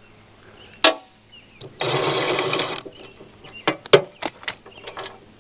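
Metal hand-tool work on the flail mower's bracket bolts: a sharp click, then a dense rattle lasting about a second, then a few quick metallic clinks as the loose bolts are handled.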